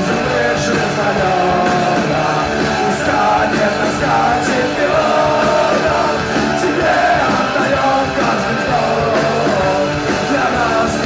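Punk rock band playing with electric guitar, bass guitar and drums, a male singer singing over them.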